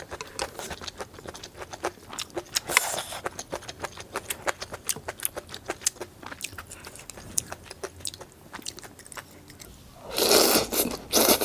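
Crunchy food being bitten and chewed close to the microphone: a dense run of sharp crackling crunches, then a louder burst of noise near the end.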